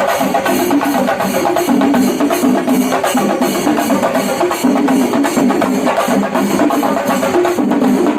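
Chenda melam: an ensemble of Kerala chenda drums beaten with sticks in fast, dense strokes, a loud unbroken percussive roar.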